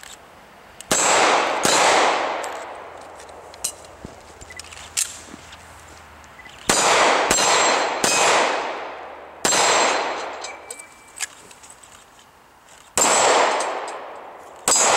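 Semi-automatic pistol firing about eight shots, in quick pairs and singles a few seconds apart, each with a ringing tail that dies away over about a second.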